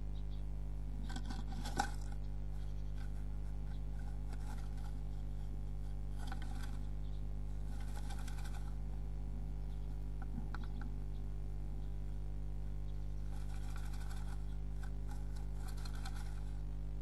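A tit inside a wooden nest box scratching and rustling in its nest material while building the nest, in several short bursts with a sharp tap about two seconds in. A steady low electrical hum runs underneath.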